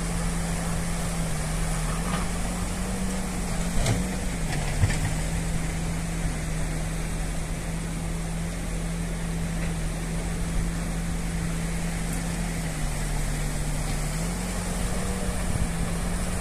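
Diesel engine of a backhoe loader running steadily, its engine speed stepping up and back down twice, with a couple of knocks about four to five seconds in. Under it is the steady rush of a flooded river pouring over a low bridge.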